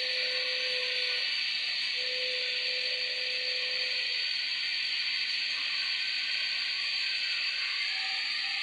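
Tata Hitachi EX210LC excavator running: a steady hiss, with a faint thin whine that comes and goes in the first four seconds.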